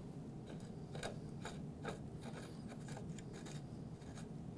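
Faint, irregular light clicks and scraping as a bicycle pedal's threaded spindle is turned by hand into the crank arm.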